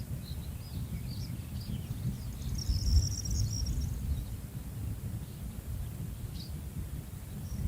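Birds chirping, with a brief twittering trill about three seconds in, over a low rumble.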